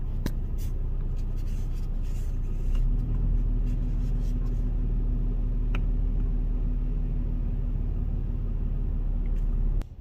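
Toyota Tacoma's engine running, heard from inside the cab as a steady low rumble, with a steady hum joining in about three seconds in. A light click just before six seconds as the brake controller's dash button is pressed; the sound cuts off suddenly near the end.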